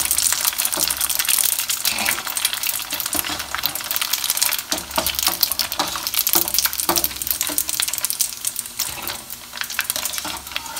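Macaroni deep-frying in hot oil in a stainless steel pot: a continuous crackling sizzle, broken by sharp metallic clinks of a wire spider strainer against the pot.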